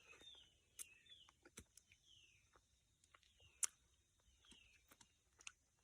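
Faint forest birdsong: a bird repeating short, downward-sliding whistled notes several times, with scattered small clicks and ticks between them.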